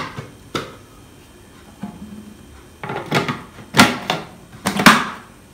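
Hard plastic parts of an Idealife IL-222 food processor knocking and clicking as the lid and food pusher are fitted into place: one knock about half a second in, then a quick run of knocks from about three to five seconds in, the last two the loudest.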